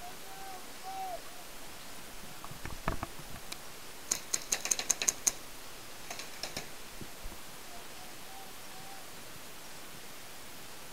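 A rapid burst of paintball gunfire: about eight sharp cracks in just over a second, beginning about four seconds in, with a few fainter cracks a second later. A single dull thump comes shortly before the burst.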